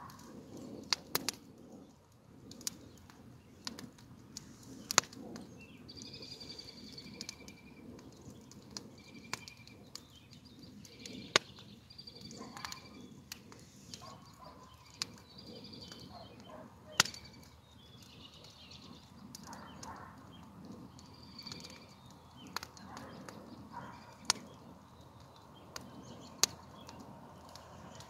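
Songbirds singing in repeated short phrases over a low rush of wind, with sharp, irregular pops and cracks scattered throughout.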